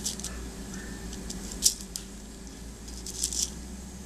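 Small pearl beads clicking against each other and the needle as they are picked up and threaded onto nylon thread for beadwork: a few sharp little clicks, with a cluster near the end, over a faint steady hum.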